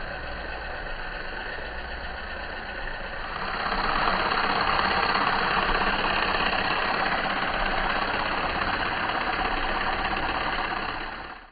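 Cordless percussion massage gun running with a steady motor buzz. It is pressed into the thigh at first, then held up free and sounds louder from about three and a half seconds in.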